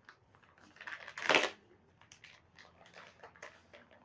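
Clear plastic packaging bag crinkling as it is opened by hand, with one louder rustle about a second in and lighter crackles after.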